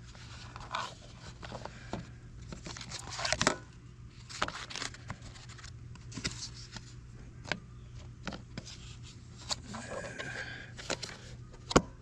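Plastic scraping and clicking as a Honda lawn mower's pleated paper air filter and black plastic filter cover are handled and fitted back on, with a sharp snap near the end as the cover seats.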